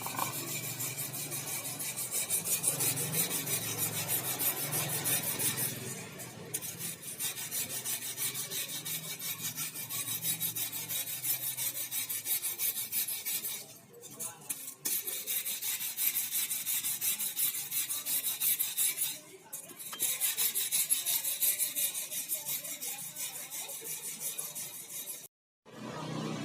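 Rapid back-and-forth rasping strokes, scraping or filing at a metal engine part, with two brief pauses.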